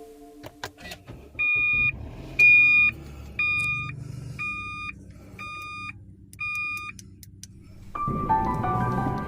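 Electronic warning beeper inside a vehicle sounding six evenly spaced beeps, about one a second, over the low rumble of the running vehicle. Background music comes in near the end.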